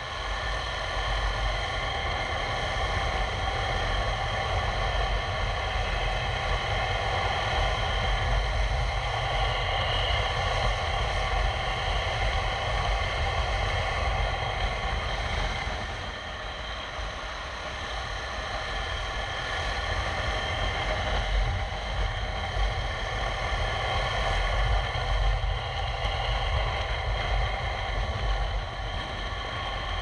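KTM 390 Adventure X's single-cylinder engine running at steady cruising throttle in third gear, over wind and road noise. The engine eases off slightly about halfway through.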